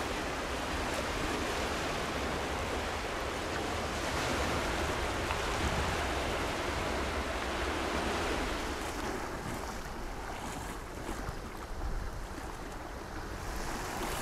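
Sea water rushing and swirling past the rocks in a strong early flood-tide current, a steady wash of water noise with wind rumbling on the microphone. It softens a little after about nine seconds.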